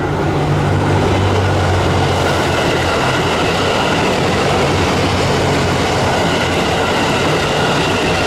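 A train running past close by on a curved track: a steady loud rumble of wheels on rail with a low hum, strongest in the first couple of seconds, and a faint high squeal from the wheels on the curve.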